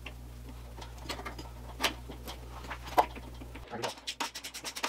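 A metal pressure-washer hose repair fitting being screwed down onto the hose in a vise: a few light clicks and taps, then, near the end, a fast, even clicking of about ten a second as the fitting is turned.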